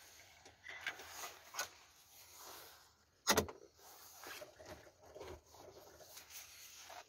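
Faint rustling and small clicks of handling inside a parked car with the engine off, with one sharp click about three seconds in.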